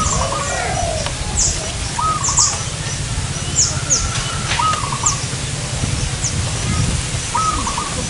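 Zebra dove (perkutut) cooing its rolling, trilled song, repeated four times about every two seconds. Short, high chirps from small birds come in between the coos.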